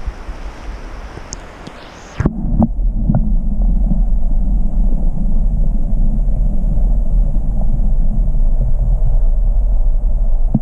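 Creek-side wind and water noise, then an action camera is dunked into the creek about two seconds in with a couple of knocks. From then on the sound is a loud, muffled low rumble of moving water heard through the submerged camera housing.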